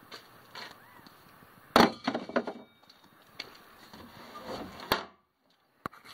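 Something dropped into an empty plastic wheelie bin lands with one loud knock about two seconds in, followed by a short clatter. The bin's plastic lid shuts with a sharp knock about five seconds in.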